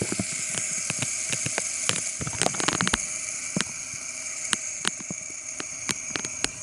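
A fidget spinner spinning: its bearing gives a steady high whir of several held tones, with scattered clicks and ticks throughout, slowly dying down.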